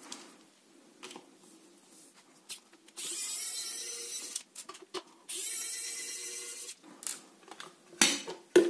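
Small precision screwdriver backing out the two Torx screws on the top of a soap dispenser: two steady runs of about a second and a half each, one per screw, followed by a few light clicks near the end.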